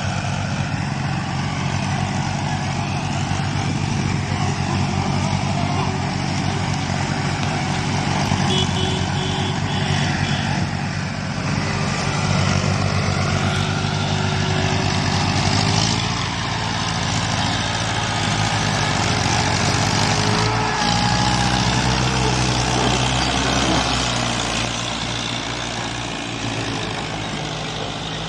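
Diesel tractors, a Mahindra Arjun 555 and a second tractor hitched in front, running hard while hauling a heavily loaded sugarcane trolley. The engine note shifts a couple of times as they work, about two thirds of the way through.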